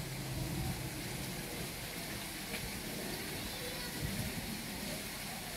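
A steady, even rushing hiss of outdoor background noise, with faint indistinct voices in the distance.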